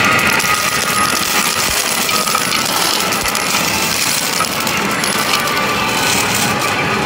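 Medal pusher machine paying out a slot jackpot: a steady stream of metal tokens clattering, over the machine's music.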